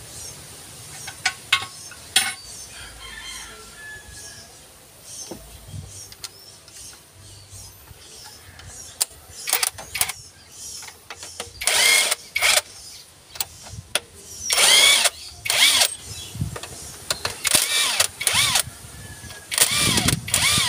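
Cordless impact wrench run in short bursts on the cylinder head bolts, its motor whirring up and down about half a dozen times in the second half. The first half holds only scattered clicks and knocks.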